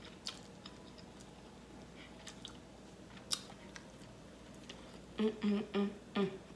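Close-up chewing of smoked turkey leg meat, with scattered wet mouth clicks and small crunches. From about five seconds in, a woman hums a string of short notes in a steady rhythm while eating.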